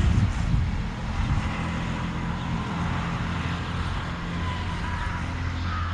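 Steady low rumble of a passing or nearby vehicle, with wind buffeting the microphone in the first second.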